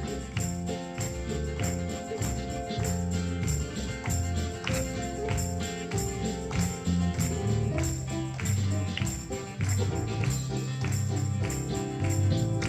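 Instrumental break of an upbeat gospel worship song played by a church band: steady bass line and sustained chords over a regular beat, with a jingling tambourine-like percussion.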